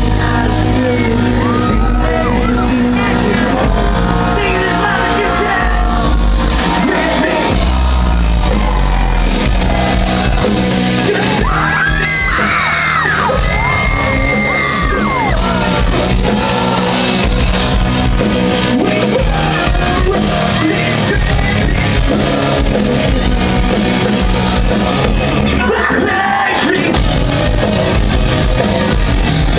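Post-hardcore band playing live and loud in a large hall, with sung and shouted vocals over the full band. It is a poor-quality audience recording, with the sound cut off in the highs.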